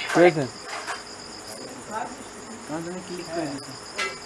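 Steady, high-pitched insect chirring, like crickets, with a few brief voices at the start and around the middle.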